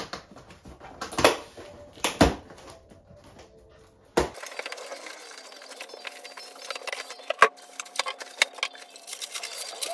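Cardboard shipping box being opened by hand, with a few loud knocks and thumps as the flaps are pulled and the box is handled. About four seconds in the sound changes abruptly to many small crackles and clicks of foam packing blocks and plastic wrap being handled as a record player is unpacked.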